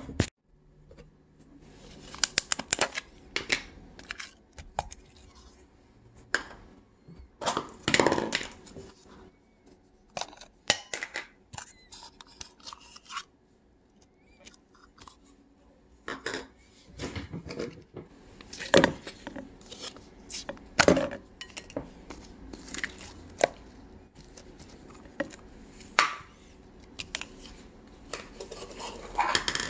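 Plastic slime tubs and lids being handled and opened, and slime being put into a clear bowl: irregular clicks, knocks and short crinkling rustles.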